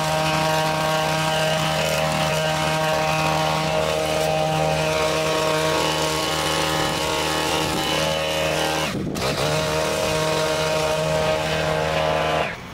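Hedge trimmer running steadily while cutting bushes. Its speed dips briefly about three quarters of the way through and picks back up, and the sound cuts off just before the end.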